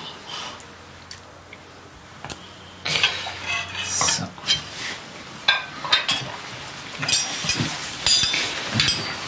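Plates, bowls and cutlery clinking and clattering as a meal is dished out, with a scatter of sharp clinks, some ringing briefly, starting about three seconds in.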